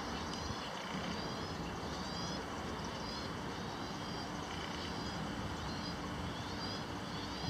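Steady low outdoor rumble with short high bird chirps repeating about once a second.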